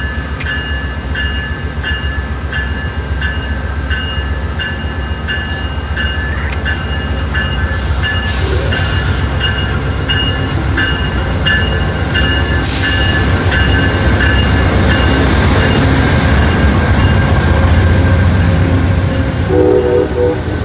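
Amtrak P42DC diesel locomotive's bell ringing steadily as the train pulls into the platform, with two short loud hissing bursts partway through. The low rumble of the locomotive's diesel engine grows louder near the end as it passes close by.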